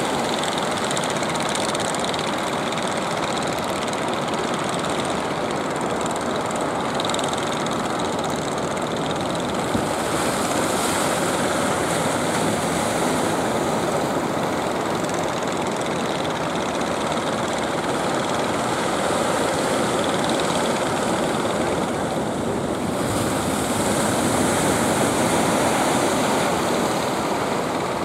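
Engines of several outrigger fishing boats running together in a steady drone, mixed with the wash of surf and choppy water.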